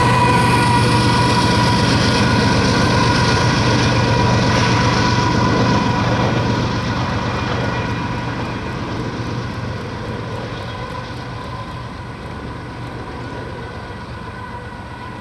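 A double-stack freight train moving away after passing, led out by its rear distributed-power locomotive, a GE ES44AC (GEVO) diesel. The engine runs with a steady whine that holds for about six seconds, then grows steadily fainter.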